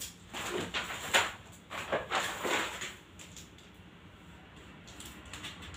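Rustling and crinkling of a large printed chart being unrolled and pressed onto a wall, several crackles in the first three seconds, then quieter.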